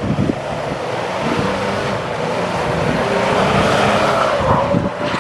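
Road traffic: a car driving past, its engine and tyre noise swelling a little past the middle and easing off near the end.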